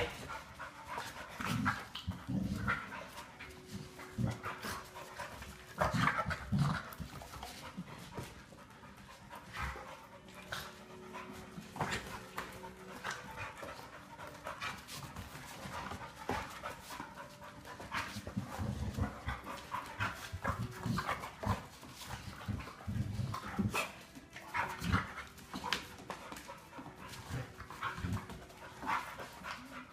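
Dog panting, with irregular small clicks and scuffling sounds throughout.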